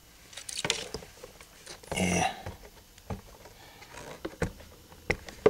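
Rubber-gloved hands handling small silicone-bonded nitrile gasket test pieces: scattered clicks and knocks, with a louder brief rubbing scrape about two seconds in.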